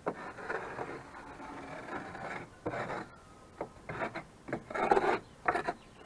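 Hands scraping and rubbing old litter across the wooden floor of a chicken coop, a steady scraping for the first two seconds or so, then a run of short strokes.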